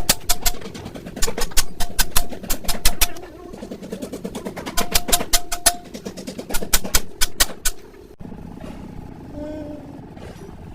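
Quick clusters of hammer blows on steel, some leaving a brief metallic ring. The hammering stops suddenly about eight seconds in, leaving a quieter low steady hum.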